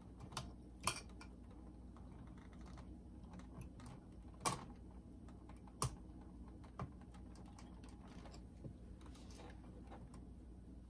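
Scattered small clicks and taps of hands unplugging wire connectors and handling small parts inside an opened cassette boombox, with a few sharper clicks among them.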